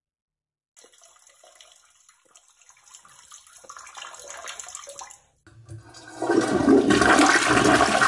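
Toilet flushing: faint running water builds for a few seconds, breaks off briefly, then a loud rush of water from about six seconds in.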